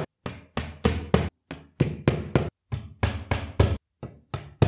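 Wooden dowels being hammered into the holes of chest-of-drawers side panels with a wooden-handled hammer. The strikes come quickly, about four a second, in short runs with brief breaks between dowels. Each knock's sound tells when the dowel sits fully in its hole.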